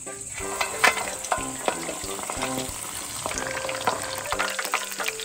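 Tofu-skin rolls and shrimp rolls deep-frying in hot oil: a steady sizzle with frequent sharp crackles and pops.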